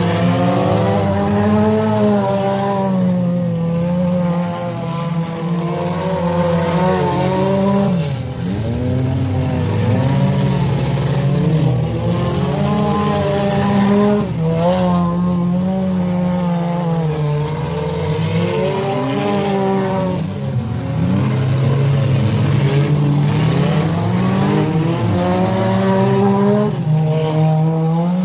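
Several figure-8 race cars' engines revving hard and backing off as they race around the dirt track, their pitches rising and falling over one another.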